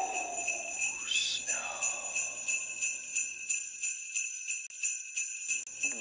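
Jingle bells shaken in a steady rhythm, ringing high and bright. About a second in, a sweep rises and then falls in pitch over them.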